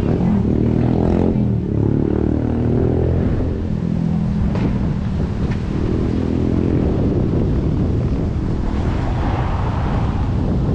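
An engine running, a low pitched hum whose pitch shifts up and down a little in the first few seconds before settling.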